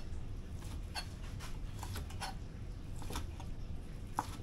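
Light scattered clicks and scrapes of utensils handling a grilled cowboy steak as it is set up for cutting, over a low steady hum, with a sharper click about four seconds in.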